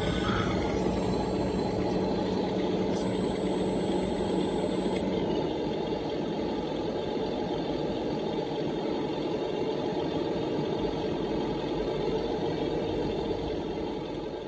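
Radio-controlled long-reach CAT hydraulic excavator model running its hydraulic pump, a steady mechanical hum and whine as the boom and bucket move; one tone in the hum drops out about five seconds in.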